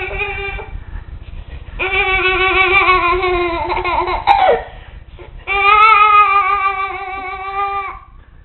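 A young child's long, wavering, high-pitched "ooo" vocalisations, drawn-out laughs that sound like a spooky Halloween ghost voice. The sound comes in three long held calls. The middle one slides down in pitch at its end.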